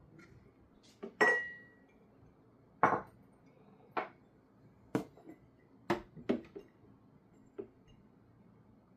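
A series of about ten hard clinks and knocks at uneven intervals, like dishware or glass being handled and set down. The loudest, about a second in, rings briefly on a single high note.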